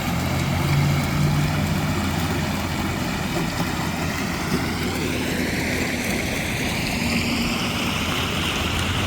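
Small creek running steadily, a continuous rush of flowing water that grows a little brighter about halfway through. The speaker wonders whether the creek is recirculated.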